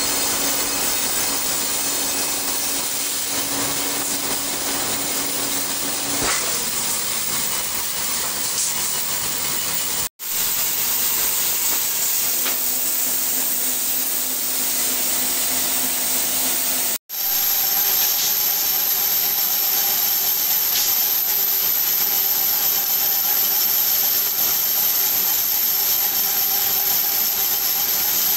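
Steady hissing noise of workshop machinery running, with faint steady hums underneath. The sound cuts out briefly twice.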